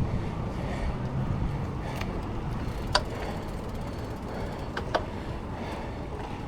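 Mountain bike being ridden on a dirt trail: steady rolling noise with a few sharp clicks or knocks from the bike, about three seconds in and again near five seconds.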